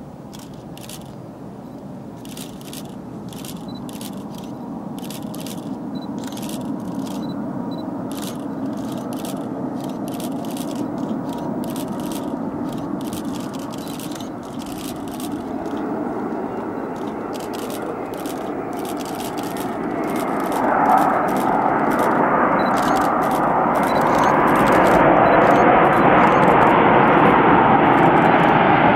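Jet airliner on final approach, its engine noise growing steadily louder as it comes closer, loudest near the end.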